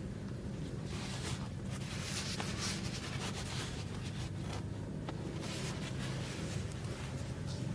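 Irregular rustling and scratchy handling sounds, short swishes every second or so, over a steady low hum.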